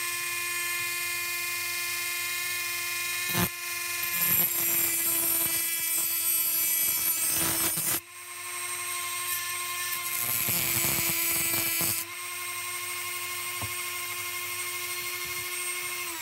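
Dremel rotary tool with a cut-off disc running at a steady high whine while cutting the old brass ring off the lamp holder. Louder grinding comes in from about four seconds in, breaks briefly around eight seconds, and eases off again around twelve seconds.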